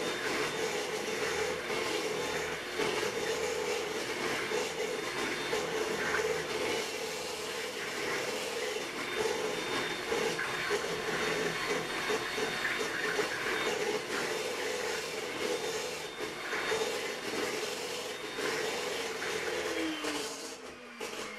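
Electric hand mixer running steadily, its beaters whisking runny pancake batter in a stainless steel bowl. Near the end it is switched off and its whine falls in pitch as the motor winds down.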